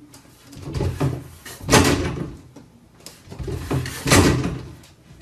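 A cat jumping at a closed door and pulling on its handle, rattling the latch and knocking the door against its frame. It happens twice, each time a couple of light knocks and then a louder clatter.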